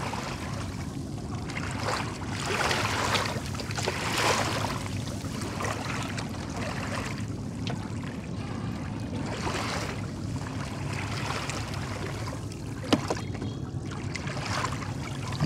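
Water splashing and trickling beside a small fishing boat as a set hook line is worked through, over a steady low hum. A single sharp knock comes near the end.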